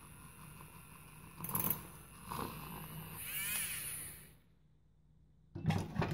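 Handheld battery milk frother whirring in a mug of milk, swelling and fading, then stopping. A sudden loud knock near the end.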